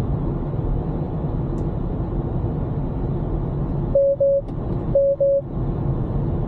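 Steady road and tyre noise inside a Tesla Model Y cabin, then about four seconds in, two pairs of short beeps on one pitch, a second apart: the car's Autopilot warning for the driver to take over the wheel after the hands-off alert has turned red.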